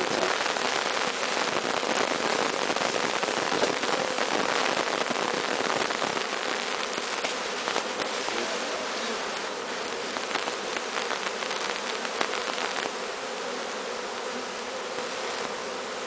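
A honeybee swarm buzzing: a steady, dense hum of many bees close to the microphone, easing a little about six seconds in.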